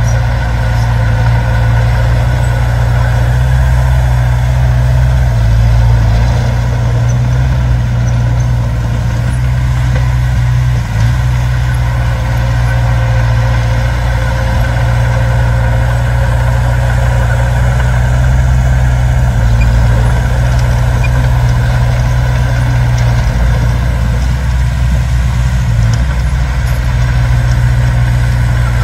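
Heavy diesel engine of earthmoving machinery running steadily, a low even hum that shifts slightly a couple of times.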